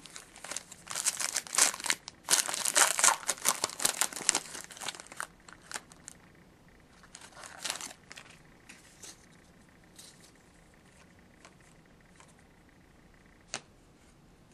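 Foil wrapper of a hockey trading card pack crinkling as it is torn open, densely for about five seconds, then lighter rustling as the cards are handled, with a single sharp click near the end.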